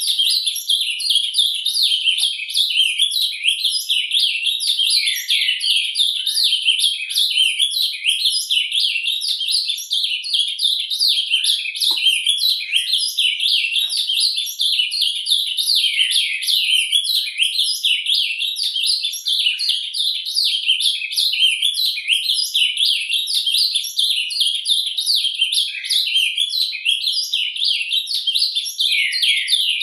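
Male ultramarine grosbeak (azulão) singing surdina, its soft sub-song: a continuous, rapid, high-pitched warbling twitter that runs on with no pauses.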